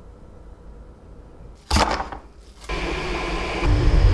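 A quiet stretch, then a short sharp whoosh about halfway through. After it comes the steady whir of a 3D printer's stepper motors running, with a deep low hum joining near the end.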